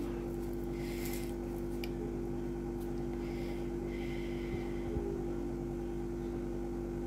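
A steady low hum from a running appliance, with a few faint soft scrapes of a fork mashing a foil-wrapped baked potato, about a second in and again around three to four seconds in.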